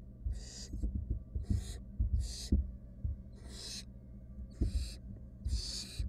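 Barn owl nestlings' hissing begging calls, the nest-box "snore": six rasping hisses, about one a second. Soft knocks and scuffs from the owls shifting on the wood-chip floor of the nest box, over a low steady hum.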